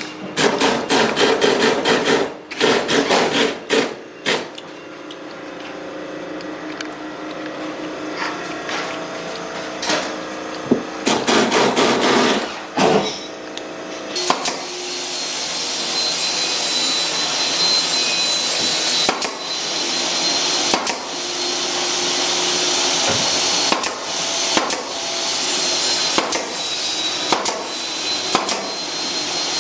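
Impact driver driving screws into wood in two bursts of rapid hammering, one near the start and one about eleven seconds in. Then a steady motor hiss with a thin whine sets in, broken by single sharp clacks every second or two.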